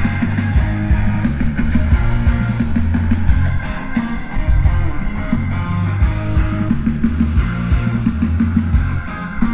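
Loud rock music with electric guitar and bass over a steady beat, as from a band playing through a PA system during a sound check.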